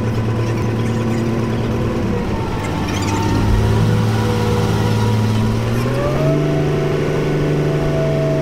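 Boat's engine running with a steady hum; its pitch shifts a little about two seconds in, then rises about six seconds in as the revs pick up.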